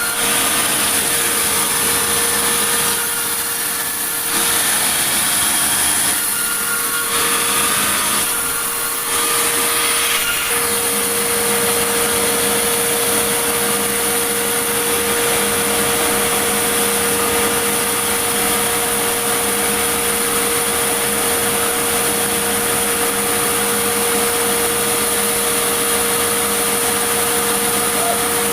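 Sawmill saw running and cutting wood, a loud continuous whine over a steady hum. The sound changes a few times in the first ten seconds, then holds even.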